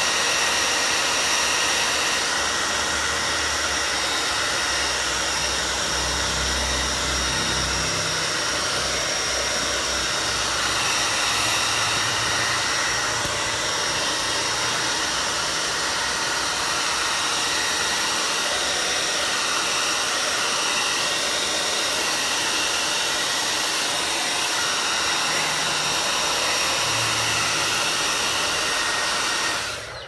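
Handheld hair dryer blowing steadily, a loud rushing of air with a faint high whine, heating leather to make it pliable; it is switched off and stops abruptly at the very end.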